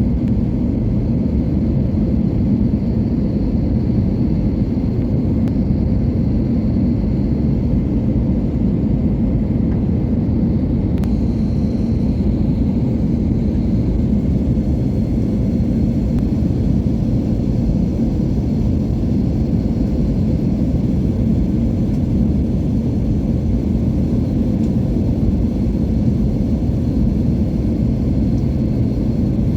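Steady low rumble of a jet airliner's engines and airflow, unchanging in level throughout, as during the approach to landing.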